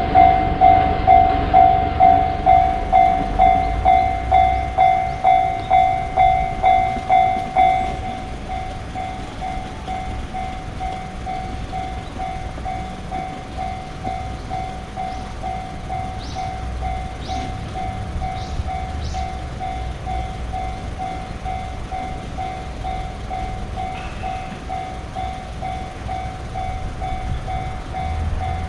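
Japanese railroad crossing warning bell ringing in a steady, rapid pulse of about two strokes a second. It is loud for the first eight seconds, then quieter but still going. A train's low rumble runs beneath it.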